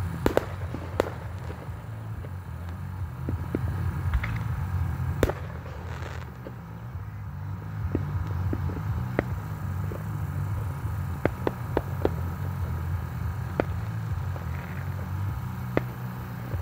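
Fireworks going off, about a dozen sharp, scattered bangs at irregular intervals, the loudest about five seconds in, over a steady low rumble.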